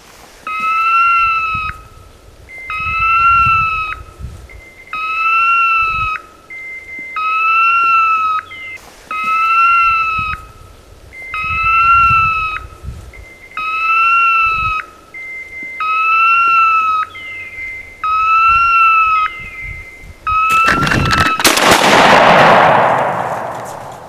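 Electronic beeper collar on a pointing dog, beeping steadily about every two seconds, ten beeps of just over a second each: the point-mode signal of a dog standing still. Near the end a loud shotgun shot with a long fading echo.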